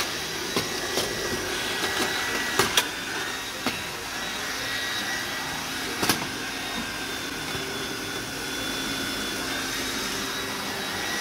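Vacuum cleaner running steadily with a high whine, with a few sharp knocks about three and six seconds in.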